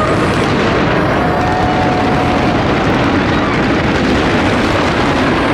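Fireworks going off, a dense unbroken crackle of bursts.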